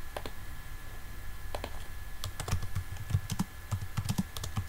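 Typing on a computer keyboard: a few separate clicks in the first seconds, then a quick, uneven run of keystrokes from about two seconds in.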